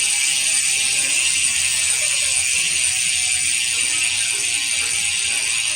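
Sword bicycle rear hub freewheeling: its six-pawl ratchet gives a loud, continuous high buzz as the wheel spins and the pawls click too fast to pick out singly.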